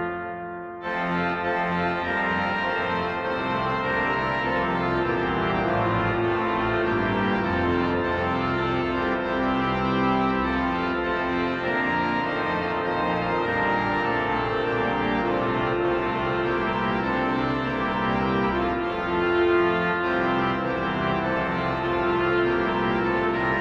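Viscount Canticus 50 digital church organ playing a piece in full, sustained chords that change every second or two. The upper notes drop out briefly in the first second before the full sound returns.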